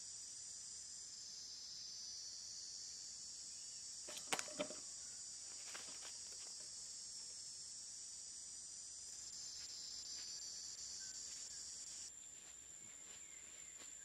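A steady, shrill insect chorus, with two sharp clacks about four seconds in as the fan-guard trap drops shut over the wire basket, followed by a few faint knocks. The chorus changes abruptly to a thinner steady whine near the end.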